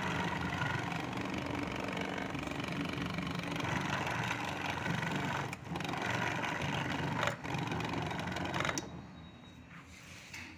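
Homemade flour grinder driven by an electric fan motor, running steadily with a whirring hum as it grinds rice into flour; it stops near the end and the sound drops away.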